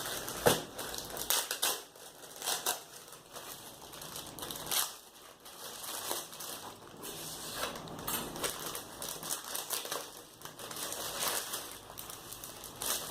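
Plastic packaging crinkling and crackling unevenly as a shirt is unwrapped from its double wrapping.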